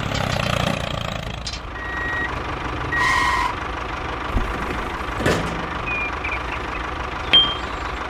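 Tractor engine sound idling steadily, with a few short high beeps over it.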